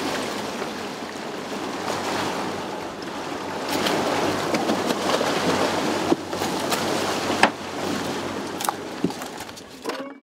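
Steady rush of wake water and wind around a boat under way, with a low outboard-engine drone underneath. A few sharp knocks come in the second half, and the sound cuts off suddenly near the end.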